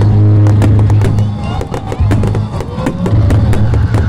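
Loud music with held bass notes playing over the pops and crackle of fireworks bursting overhead. The music fades about a second and a half in, leaving the crackling bursts and the voices of the crowd watching.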